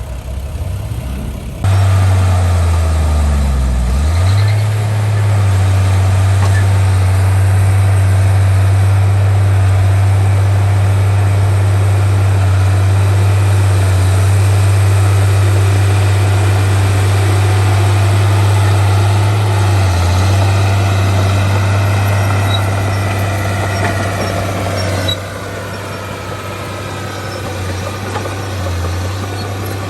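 Heavy diesel engine of earthmoving machinery running hard and steady. It gets sharply louder about two seconds in and drops back sharply about five seconds before the end.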